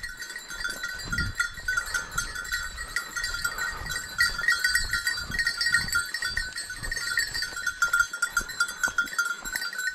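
A bell worn by a hunting hound jingling steadily as the dog trots along, with soft footsteps on a dirt track underneath.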